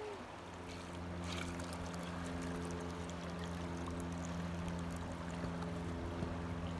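A motor hums steadily from about half a second in, with a faint hiss of water being poured from a plastic bucket onto wet sand.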